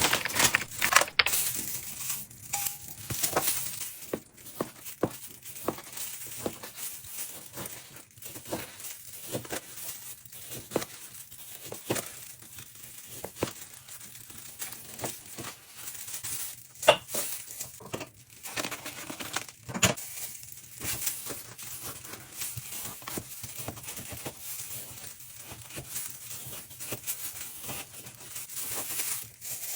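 Plastic food packaging being handled, crinkling and tearing, with a scatter of small clicks and clinks.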